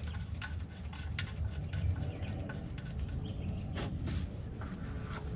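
Wind buffeting the microphone as a steady low rumble, with scattered light clicks and faint bird chirps.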